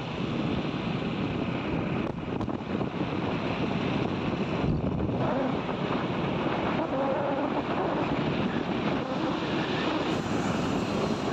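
Steady riding noise from a moving motorbike: wind rushing over the microphone with the engine running underneath at a constant pace.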